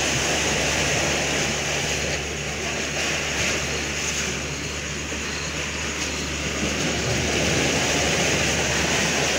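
A steady, loud mechanical drone with a low hum under an even rushing noise, like an engine running close by.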